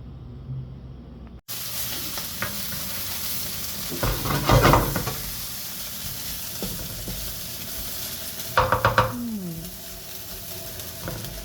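Chopped ham, onion, red pepper and green chilli frying in a pan without oil, sizzling steadily. A spatula scrapes and clatters against the pan in two bursts of stirring, about four seconds in and again near the end. The sizzle starts abruptly about a second and a half in.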